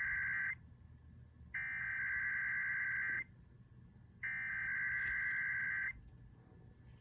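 Emergency Alert System SAME header tones: a shrill digital data screech sent in repeated bursts. The first burst ends just after the start, then two more follow, each about a second and a half long and a second apart. They mark the start of a Required Weekly Test.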